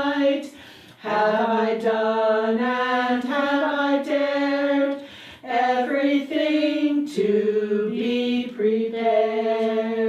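A small group of women singing together a cappella, in long held notes with two short breaths, about a second in and about five seconds in.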